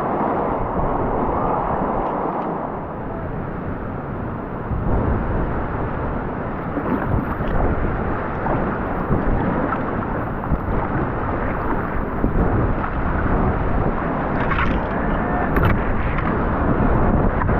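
Big whitewater of a high-flowing river rushing and churning close around a kayak, with low buffeting of water and wind on the head-mounted camera's microphone that grows heavier about five seconds in.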